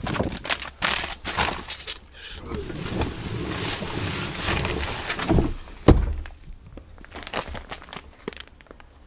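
Hands rummaging through rubbish in a bin: plastic bags and packaging rustling and knocking, with one loud thump about six seconds in.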